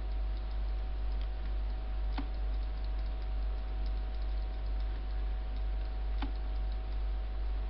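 Two sharp computer mouse clicks, about two seconds and six seconds in, with a few fainter ticks, over a steady low electrical hum.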